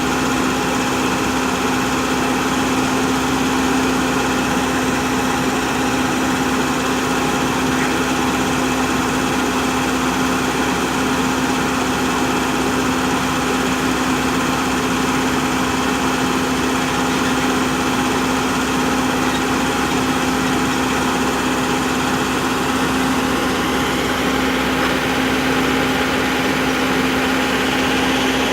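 An engine running steadily at a constant speed, with a strong, even hum.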